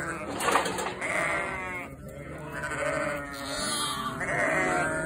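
A flock of ewes and lambs bleating, with many calls at different pitches overlapping without a break.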